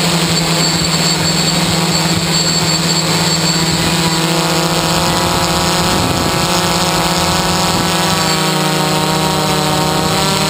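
Motors and propellers of a multirotor camera drone, heard from on board: a loud, steady hum with a strong low tone, plus a higher whine that comes in about halfway through.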